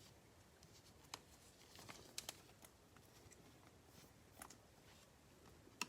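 Near silence with a few faint, scattered clicks and ticks of trading cards being handled.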